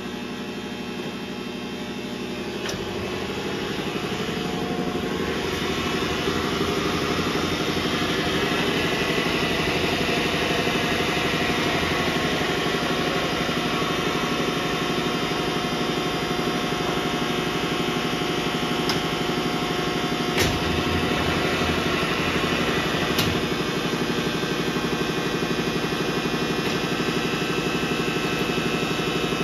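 Hardinge HC chucker lathe running under power: the spindle and variable-speed drive build up over the first several seconds, then settle into a steady mechanical running hum. Two sharp knocks come about 20 and 23 seconds in.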